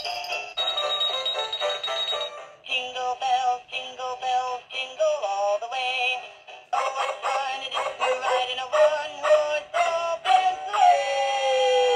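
Animated plush snowman toy singing a Christmas song through its small speaker, with a thin sound and no bass. Near the end a long held note slides down.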